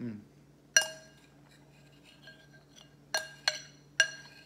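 A utensil clinking against a bowl four times, each strike ringing briefly: once about a second in, then three in quick succession near the end.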